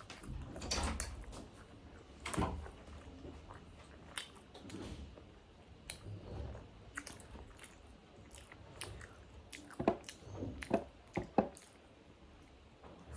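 Close-up eating sounds: chewing and biting on chicken momo dumplings, with scattered wet mouth clicks and smacks, a denser run of sharp clicks near the end.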